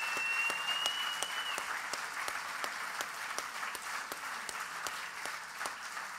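Audience applauding steadily in a large room, the clapping easing off slowly. A thin high steady tone sounds briefly over it in the first second and a half.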